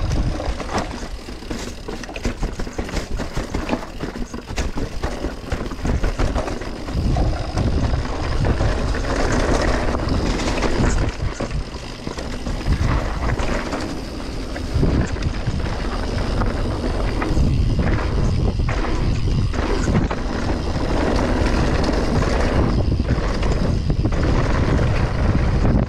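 Mountain bike riding downhill on a dirt trail: wind buffeting the microphone, tyres rolling over the ground and the bike rattling with frequent small clatters.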